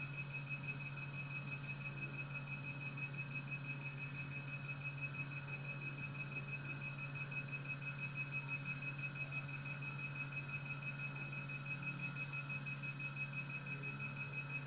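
Mediostar diode hair-removal laser firing continuously as its handpiece glides over skin: a rapid, even train of high beeps, several a second, over the unit's steady low hum.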